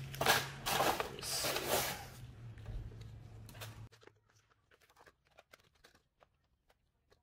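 Plastic radiator fan assemblies and foam packing being handled on a concrete floor: loud rustling and scraping for about two seconds that fades out, then only faint scattered clicks and taps from about four seconds in.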